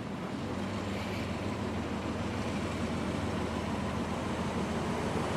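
OO gauge model of the Kestrel diesel locomotive running on the layout with a train of coal wagons: a steady running hum of motor and wheels on track that grows slowly louder as it approaches.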